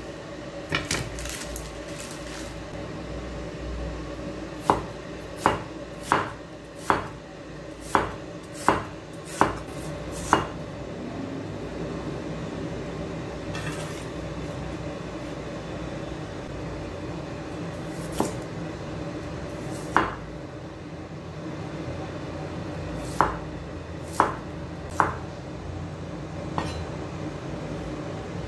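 Broad-bladed kitchen knife chopping through onion and then carrot onto a wooden cutting board: sharp knocks in runs, about one every three-quarters of a second, with pauses between the runs. A steady low hum underneath.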